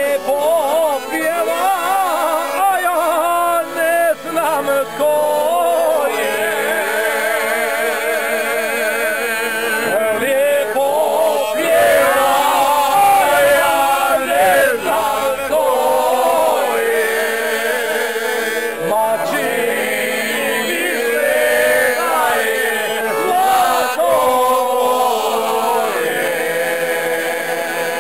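A group of men singing a folk song together to live accordion accompaniment, their voices wavering over the accordions' held chords.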